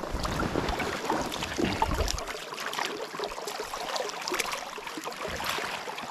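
Shallow river current rippling around a wader, with many small splashes as a landing net dips into the water while a small brook trout is brought in.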